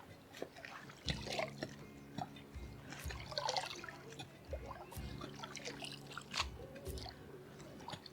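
Soil being dug and broken up by hand to lift sweet potato tubers, heard as scattered small crunches, scrapes and ticks at irregular intervals.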